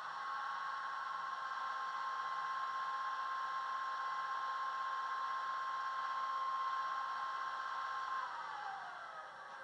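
Class 47 diesel locomotive sound, as recorded from an ETH-fitted Class 47, played by the model's DCC sound decoder through small speakers: a whine with overtones holds one steady pitch, then falls away about eight seconds in.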